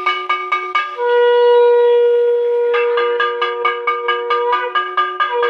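A conch shell (shankha) blown in a long, steady note beginning about a second in, with a brief break near the end before it sounds again. Under it, a hand bell rings in fast, even strokes, about five a second, pausing as the conch starts and returning partway through.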